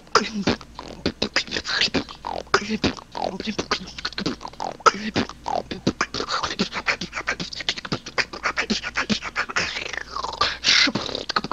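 A woman beatboxing: a fast, dense run of mouth-made drum clicks, snares and hisses, with short vocal bass sweeps between them.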